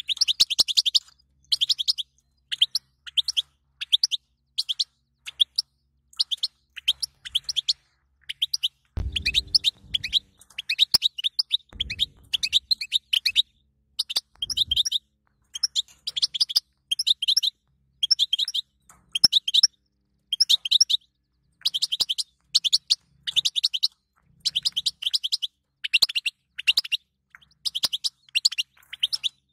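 European goldfinch twittering in rapid bursts of high chirps, short phrases repeating with brief gaps. A few low thumps come in near the middle.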